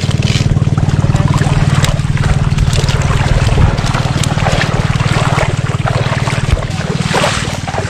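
A small engine running steadily as a low drone, a little quieter near the end. Over it, water trickles and splashes from a wet fish net as it is shaken out over a mesh cage.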